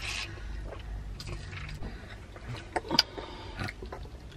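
Eating and drinking sounds: chewing, a sip through a drinking straw right at the start, and a few light clicks about three seconds in.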